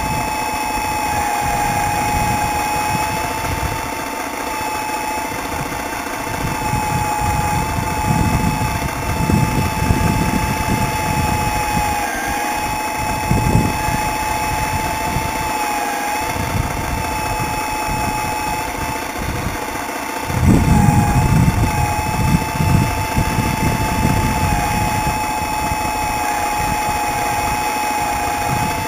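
Miniature radio-controlled CAT 320 hydraulic excavator's hydraulic pump running with a steady high whine that dips briefly in pitch a few times as the arm and bucket work. Irregular low rumbles come and go over it and are heaviest about two-thirds of the way through.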